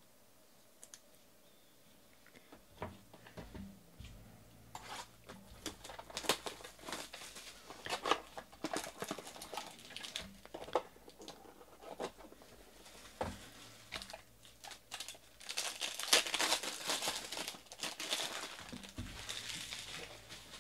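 Clear plastic being handled by hand: irregular crinkling and rustling broken by sharp plastic clicks and taps, busiest a few seconds before the end.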